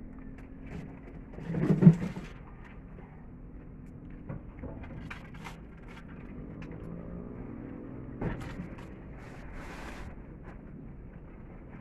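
Knocks, footsteps and rustling of plastic tarpaulin as a person climbs onto and bends over a tarp-covered bed. A heavy thump about two seconds in is the loudest sound, with a sharper knock later on.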